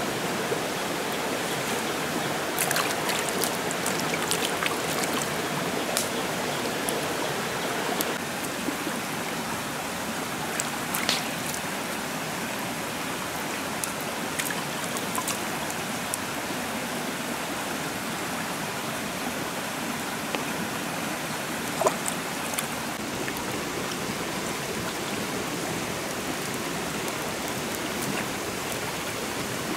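Shallow forest stream running steadily, with scattered small splashes and knocks of hands working in the water; the sharpest knock comes about 22 seconds in.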